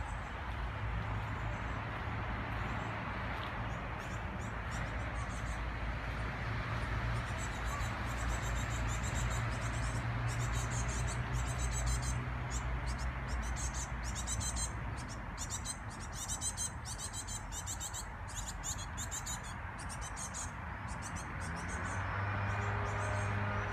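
Small birds chirping, with quick runs of high chirps and trills from several seconds in until near the end, over a steady low rumble and hiss.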